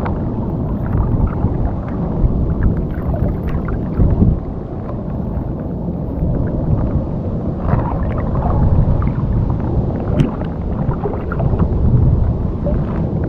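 Strong wind buffeting the microphone: a loud, dense low rumble, with scattered small ticks and knocks.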